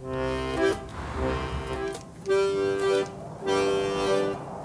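Background music: short phrases of sustained chords, each held for about half a second to a second, with brief gaps between them.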